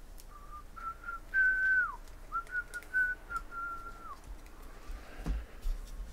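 A person whistling a short tune: a string of clear notes, some of them held, two of them sliding down at the end, with faint clicks in between.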